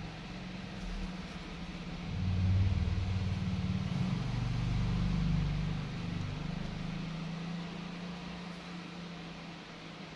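A motor vehicle's engine running, a low hum that swells about two seconds in and fades away over the last few seconds.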